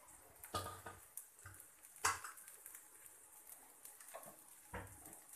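Faint sizzling of a butter dosa cooking on a hot tawa, with a few light clinks and knocks of metal kitchenware; the loudest clink comes about two seconds in.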